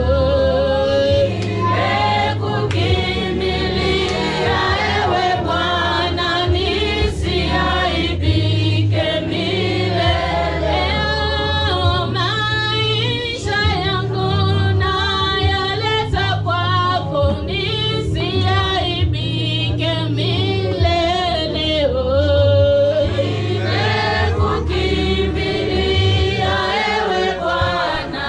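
Church praise and worship team singing in chorus as a choir, many voices together over a low musical backing.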